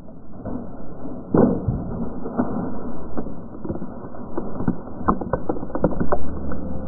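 People splashing and wading through a shallow muddy stream, with a string of sharp knocks and clatters. The loudest knock comes about a second and a half in, and a quick run of them follows around five to six seconds in.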